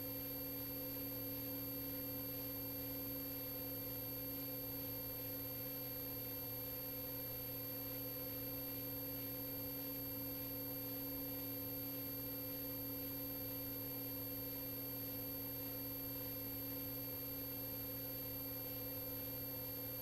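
Steady electrical hum with several constant tones over faint hiss, unchanging throughout: the background of a radio or intercom audio feed between transmissions.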